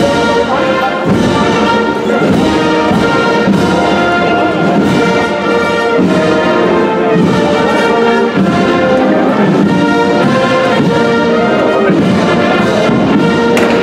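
Brass band playing a Holy Week processional march behind a canopied Virgin's float, with sustained brass chords and melody.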